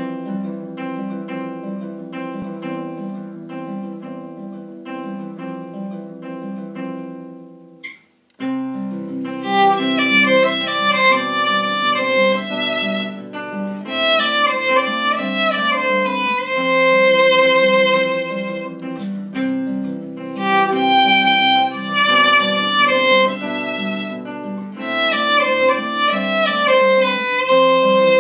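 Instrumental music: a plucked-string accompaniment repeats quick notes at a steady pulse and breaks off briefly about eight seconds in. A bowed violin melody with vibrato then comes in over the plucked accompaniment.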